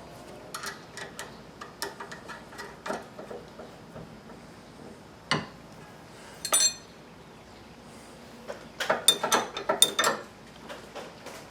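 Ratcheting gear wrench clicking in short runs as the nut on a new front stabilizer link is tightened. A single knock and a ringing metal clink of tools come in the middle.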